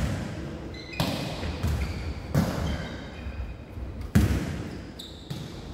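Jokgu ball being kicked and bouncing on a wooden gym floor during a rally: three sharp hits about a second and a half apart, each echoing in the large hall.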